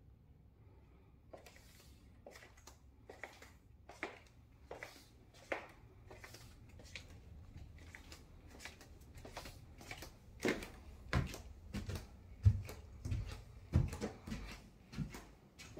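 Footsteps of a person walking at an even pace, about one step every 0.7 seconds. From about ten seconds in they turn into louder, deeper thuds as the walker climbs a flight of stairs.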